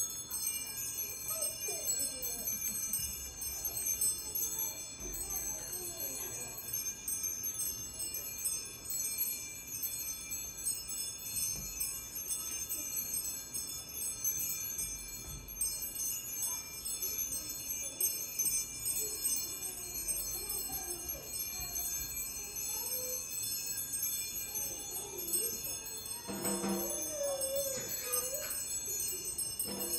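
Solo snare drum improvisation in which the drum is worked with a jingling metal implement, keeping up a steady, bright metallic chiming and jingling shimmer with softer sounds underneath.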